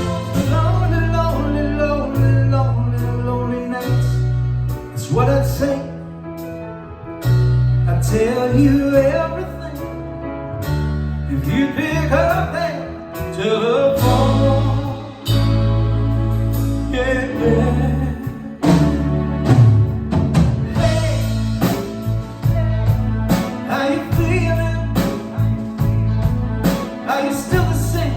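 Rock band playing, with a man singing the melody over a steady bass line.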